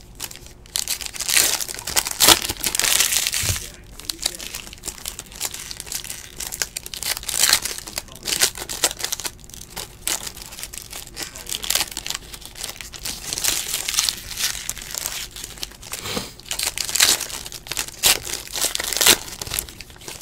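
Foil wrappers of 2017 Panini Playoff football card packs crinkling and tearing as the packs are ripped open by hand, in irregular bursts, loudest in the first few seconds and again near the end.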